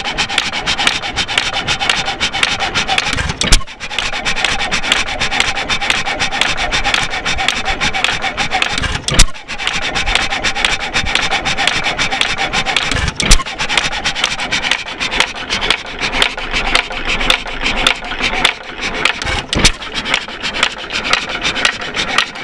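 A 4 hp York hit-and-miss gas engine running, its mechanism clattering rapidly and steadily. A few louder bangs come several seconds apart, as the engine fires and then coasts between firings.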